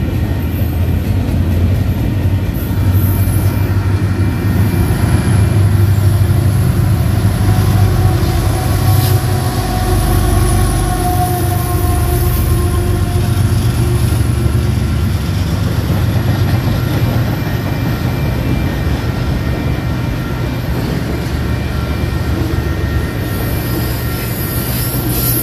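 Intermodal freight train cars rolling past, a loud steady rumble of wheels on rail. High, steady wheel-squeal tones come and go over it.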